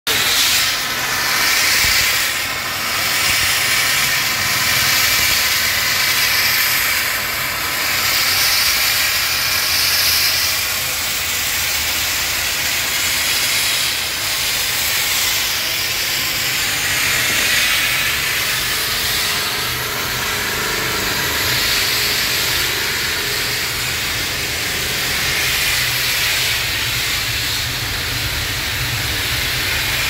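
Steam blowing from an open valve on a small non-IBR steam boiler's outlet line: a loud, steady hiss, with a steady low hum underneath.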